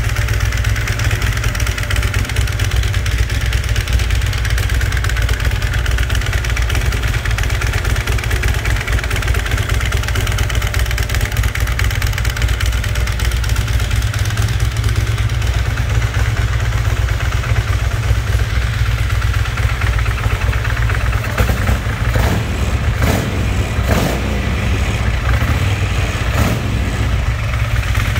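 Big air-cooled V-twin motorcycle engine idling steadily. A few sharp knocks come through in the last quarter.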